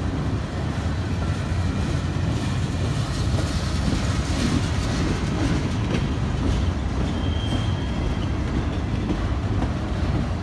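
CSX freight train's empty steel-coil cars rolling past close by: a steady low rumble of steel wheels on the rails with clickety-clack.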